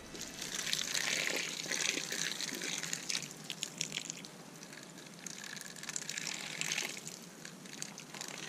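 Water pouring in a thin stream from a plastic watering can, splashing onto peat seedling pots and wet soil. The flow eases off about halfway through and then picks up again.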